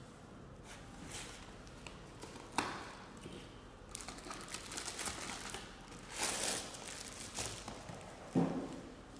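Cardboard box flaps and a clear plastic bag crinkling and rustling as a boxed novelty coin bank is unpacked by hand. There is a sharp tap a few seconds in and a dull thump near the end.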